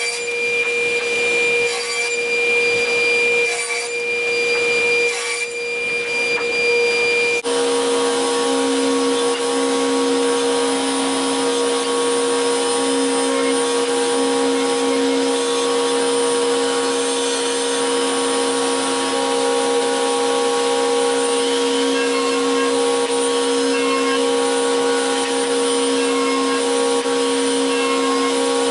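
A woodworking power tool running steadily on wood, with a dusty hiss. Its pitch changes abruptly about seven seconds in, and it then runs on steadily.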